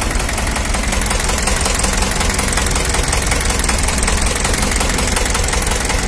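Standard 460 tractor's diesel engine idling steadily.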